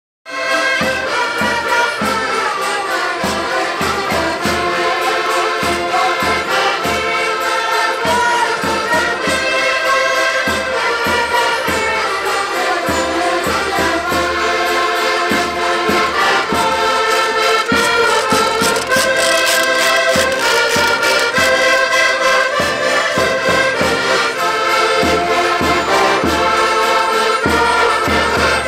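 An ensemble of Portuguese concertinas (diatonic button accordions) playing a lively folk tune together, with a steady beat.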